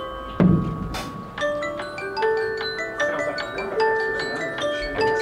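Marching band front ensemble playing a mallet-percussion passage on marimba and glockenspiel, quick ringing notes overlapping. A deep drum hit lands about half a second in, followed by a cymbal crash.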